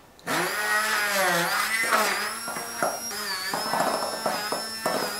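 Stick hand blender running in a glass bowl of flour and cold butter, cutting the butter into the flour until it is crumbly for scone dough. The motor whine starts about a third of a second in and rises and falls in pitch as the load changes, with scattered clicks.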